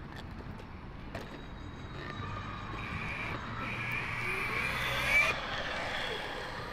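A motor whine that builds and rises in pitch over a few seconds, then cuts off abruptly about five seconds in.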